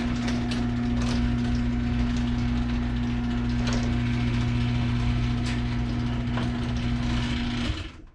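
LiftMaster Professional 1/3 HP garage door opener running with a steady motor hum as it raises the door, with rattling and occasional clicks from the moving door. The motor stops suddenly near the end as the door reaches the top.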